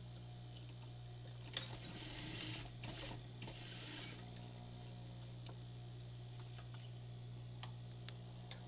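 Faint, steady hum of a sewing machine's motor. About a second and a half in comes a short run of sewing that lasts about two and a half seconds, and a few sharp clicks follow near the end.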